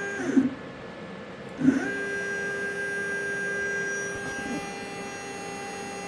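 CNC lathe axis drive motor turning the lead screw to move the carriage. It makes a steady whine that stops just after the start, then starts again with a knock under two seconds in and holds. Its tone changes about four seconds in.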